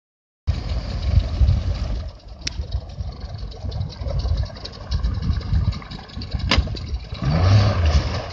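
Outboard motor of a small skiff idling, then throttling up near the end as the boat pulls away, the low engine note rising in pitch. Two sharp clicks along the way.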